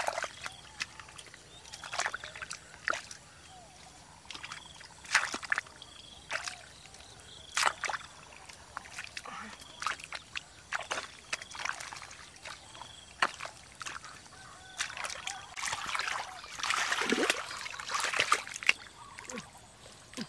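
Hands digging and groping through mud and shallow muddy water, giving irregular wet splashes, sloshes and squelches, busiest about three-quarters of the way through.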